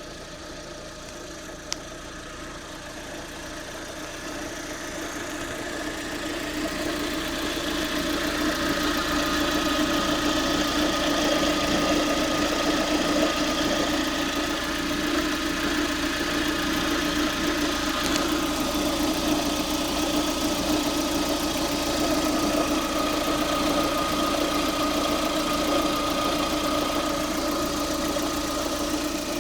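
Warm Lada Priora 21126 1.6 16-valve engine idling, with a steady extraneous hum-whine over the idle that the owner links to the water pump. It grows louder over the first several seconds, then holds steady.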